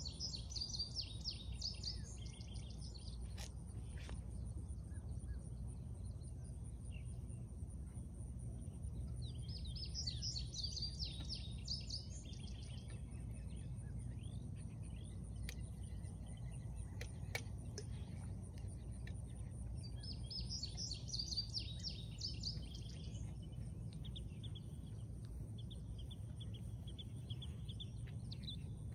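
A songbird singing short, fast chirping phrases, three bursts about ten seconds apart, over a steady low outdoor rumble.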